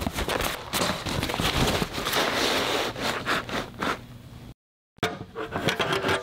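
Crumpled brown packing paper rustling and crinkling as hands dig through a cardboard box, with many sharp crackles. After a brief break about four and a half seconds in, metal scrapes as pliers work the cap of a metal fuel can.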